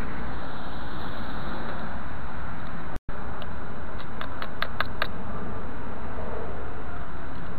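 Steady rushing noise on the microphone, with a quick run of about six small metallic clicks between four and five seconds in as small bits of scrap metal are pulled off a roller sweeper magnet by hand. The sound cuts out for a moment about three seconds in.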